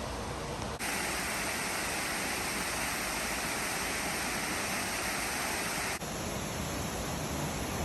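Steady rushing roar of a waterfall, with no pitch or rhythm. It gets suddenly louder and brighter about a second in and drops back just as suddenly about six seconds in.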